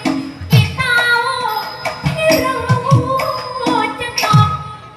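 Thai likay stage music: a female voice singing a drawn-out, bending melody over an accompanying band, punctuated by heavy drum strikes at uneven spacing. The music thins out near the end.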